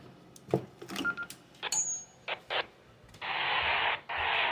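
Emergency Alert System SAME header data bursts: two harsh, buzzy bursts of digital tones, each about a second long, starting about three seconds in. They signal that a new alert is starting. Before them come a few scattered clicks and short beeps.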